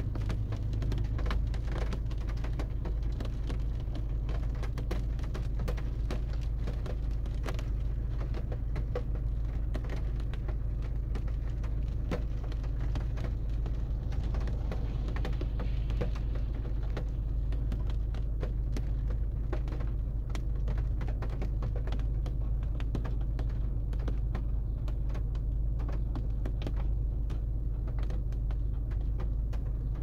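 Rain falling, with many individual drops ticking irregularly over a low steady rumble.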